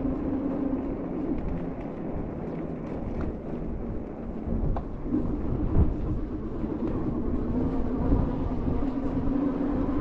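Wind buffeting the microphone in an uneven low rumble, under a steady droning hum that fades briefly a few seconds in and then comes back.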